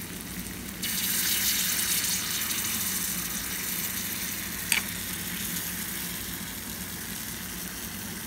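Chocolate sauce sizzling and bubbling on a hot iron sizzler plate under a brownie: a steady hiss that swells about a second in and slowly eases off, with a single sharp click near the middle.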